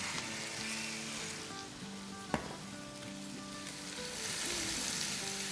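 Sliced onions and bell peppers sizzling as they stir-fry in a nonstick wok, with a spatula stirring them partway through. Soft background music plays underneath, and there is a single sharp click a little over two seconds in.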